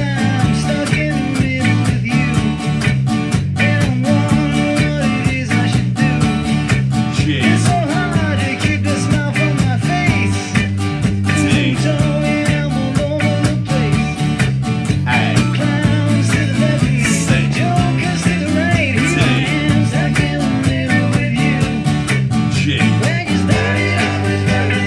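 Epiphone guitar strumming chords in D along with a rock song recording that has singing and a steady beat.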